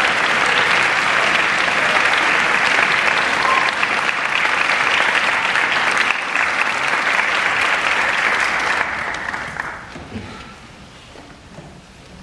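Concert-hall audience applauding steadily, then dying away about ten seconds in as the soloist and conductor take their places.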